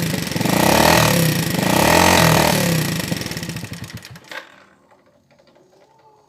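Yamaha Vega ZR's four-stroke single-cylinder engine revved twice with a clattering, sewing-machine-like mechanical noise, then shut off, dying away about four seconds in with a click. The noise is the sign of a badly worn engine that sounds wrecked and smokes.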